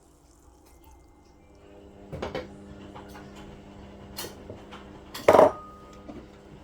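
Kitchen utensils and containers knocking and clinking against a pot a few times, the loudest clatter about five seconds in, over a faint steady hum.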